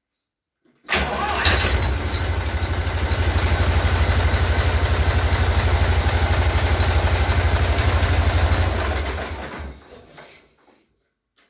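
IHC 423 tractor's diesel engine starting from cold: it catches at once about a second in, then idles with an even, rapid beat for about eight seconds before it is shut off and runs down. It starts readily, its valves freshly adjusted.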